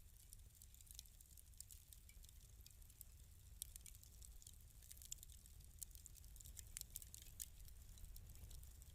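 Fireplace fire crackling softly: irregular small pops and snaps over a low steady rumble.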